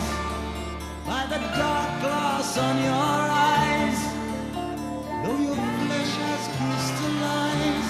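Background song with singing over guitar, steady bass and drums.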